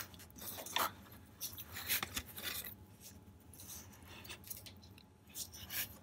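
Silicone self-bonding tape being stretched and wrapped tightly around a copper pipe by hand: faint, irregular rustling and rubbing.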